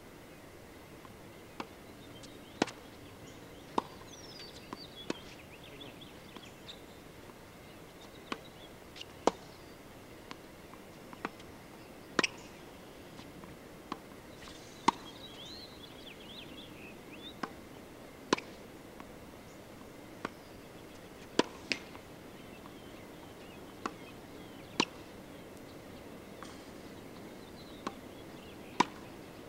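Tennis racket striking tennis balls, a sharp pop about every three seconds with fainter clicks of balls bouncing on the hard court between, as a player hits one ball after another. Birds chirp briefly in the background a few times.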